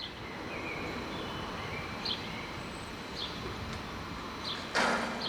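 Steady outdoor background noise with a few short, high bird chirps spaced about a second apart, and a brief loud rush of noise near the end.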